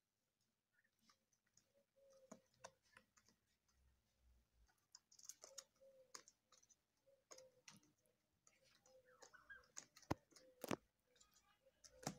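Turkeys pecking at sprouted wheat grass in a plastic crate: irregular sharp clicks of beaks striking and tearing the shoots, with two louder clicks about ten seconds in.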